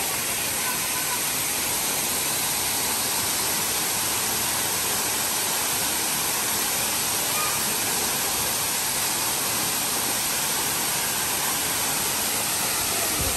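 Waterfall pouring into a rock pool, a steady rushing of falling water that does not change.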